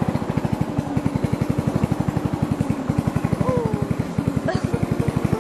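Inboard engine of a small wooden klotok motorboat running steadily under way, a fast even put-put at about ten beats a second.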